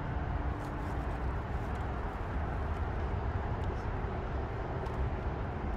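Steady low rumble of traffic on the George Washington Bridge overhead, heard as outdoor ambience without distinct events.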